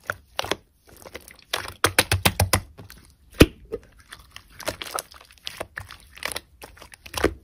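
Glossy slime being squeezed and stretched by hand, making irregular sticky clicks and crackling pops. There is a quick run of pops about two seconds in and one sharp pop near the middle.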